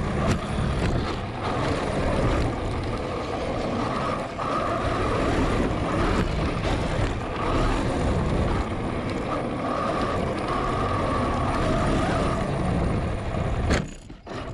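Traxxas X-Maxx RC monster truck driving hard over dirt, heard from a camera mounted on the truck: its Hobbywing Max6 brushless motor and WFO gears whine, coming and going, over the clatter of the drivetrain, tyres and chassis. The noise cuts out near the end.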